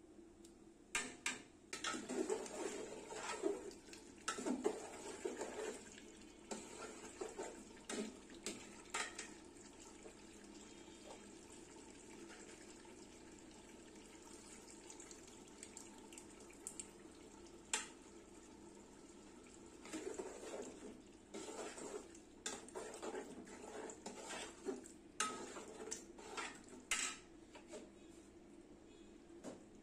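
Metal spatula scraping and clinking against an aluminium cooking pot while stirring chunks of meat, in two spells of rapid knocks with a quieter stretch in the middle.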